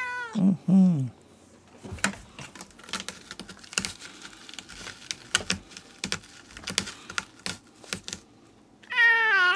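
A domestic cat meows twice, once at the start and again near the end, each a long cry falling in pitch: night-time crying. Between them come several seconds of scattered small clicks and rustling.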